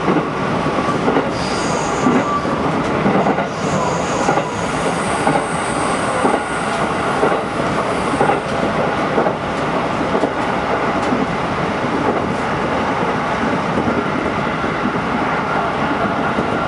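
Running noise of a 211 series electric train heard from inside the car: a steady rumble of wheels on rail with faint rail-joint clicks, and a faint high wheel squeal that comes and goes in the first half.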